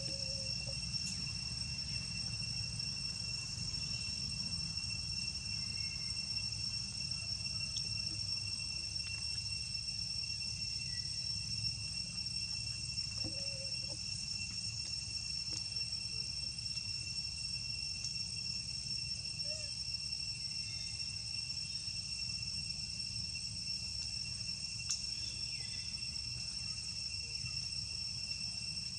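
Steady, unbroken high-pitched insect chorus droning in forest, over a low steady rumble.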